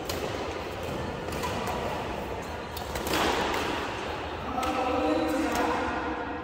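Badminton rackets striking a shuttlecock in a rally, sharp cracks about a second or so apart, over the voices of people talking.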